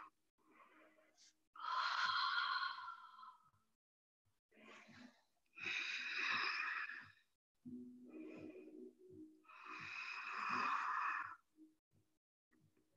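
Slow, deep breathing close to the microphone: three long breathy exhales about four seconds apart, with fainter, shorter breaths between them. The breathing is deliberate and paced.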